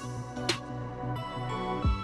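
Background music: sustained chords with a percussive hit about half a second in and a low drum thump near the end.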